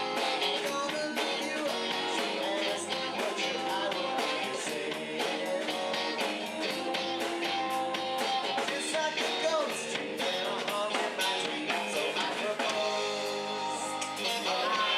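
Live rock band playing: electric bass, drum kit and guitar keeping a steady beat, with a man singing.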